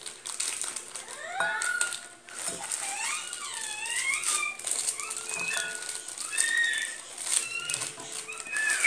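Plastic wrapper of a Cream-O sandwich-cookie pack crinkling and rustling as it is torn open by hand. Wavering, gliding high-pitched sounds run behind it.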